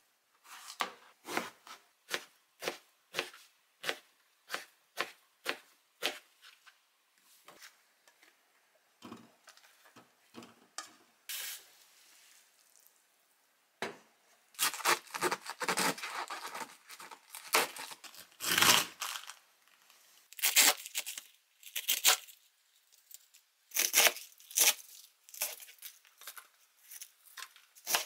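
Kitchen knife slicing an eggplant on a cutting board in steady strokes, about two a second. About halfway through comes a longer, louder stretch of crunching and rustling as a head of cabbage is handled and cut, with separate knife strokes through the cabbage near the end.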